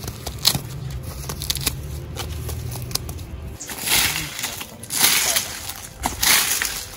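Feathers being plucked from a pigeon: soft rustling and small clicks over a low steady rumble. A little over halfway come three loud crunching footsteps on gravel and dry leaves.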